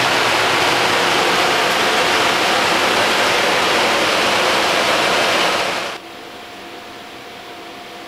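Blower door fan running at speed in a doorway, a loud steady rush of air as it exhausts air out of the house to depressurise it for an air-leakage test. The rush cuts off abruptly about six seconds in, leaving a much quieter steady hum.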